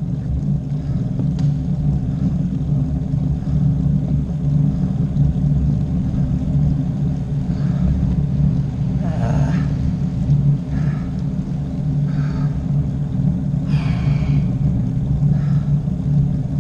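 Steady low rumble, with a few brief, fainter higher-pitched sounds around nine and fourteen seconds in.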